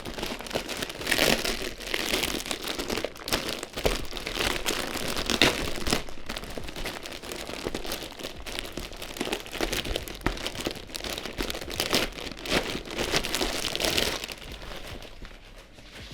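Packaging crinkling and rustling as a camera sling bag is handled and unwrapped, with many small crackles; it dies down near the end.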